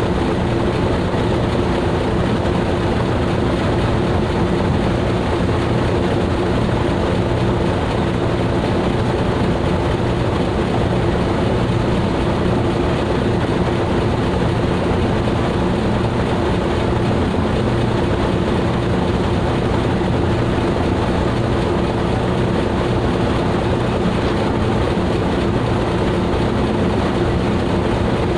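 Fishing boat's engine running steadily, an even drone with a constant low hum that holds the same pitch throughout.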